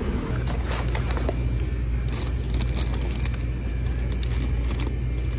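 Steady low rumble of a moving vehicle, with scattered light clicks and rattles.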